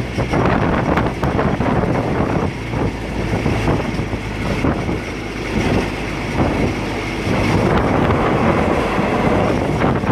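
Diesel railcar running along the line, heard from inside the passenger car: a steady engine drone under the noise of wheels on rails, with wind noise.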